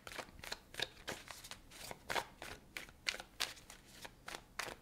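A deck of tarot cards being shuffled by hand, packets passed from one hand to the other: a faint string of short, irregular card slaps and flicks, about three or four a second.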